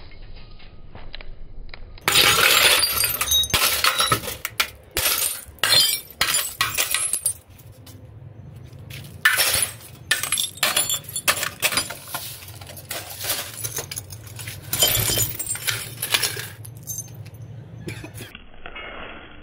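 Shattered CRT television glass and plastic housing being broken apart, a run of sharp cracks, crunches and clinking shards, with the loudest clatters in the first few seconds and again in the middle and near the end.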